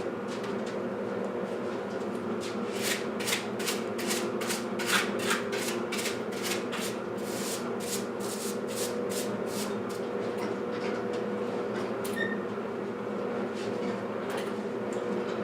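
Firewood being brought in: a run of sharp knocks and clacks, about two to three a second, for several seconds, then a few scattered knocks, over a steady hum.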